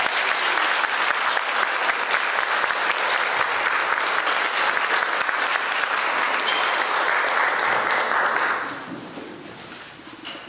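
Audience applauding, which dies away after about eight and a half seconds.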